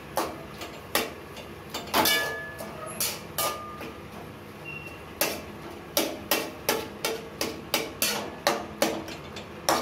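A spatula strikes and scrapes against a metal kadai while tomatoes and onions are mashed down in it, each knock leaving a short metallic ring. The knocks are spaced out at first, then come quickly, about two to three a second, from about halfway through.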